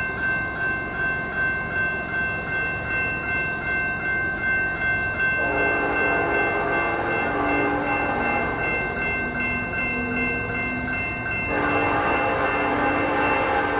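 Grade crossing bell ringing steadily. About five seconds in, an approaching Norfolk Southern freight's lead locomotive, an SD70ACe, sounds its horn for the crossing in a long chord, and a second long blast begins near the end.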